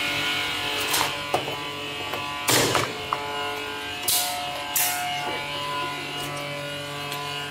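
Semi-automatic vacuum packing machine running with a steady motor hum, its vacuum pump working. Several short bursts of hiss and rustle come over it as vacuum-packed rice bricks in plastic bags are handled.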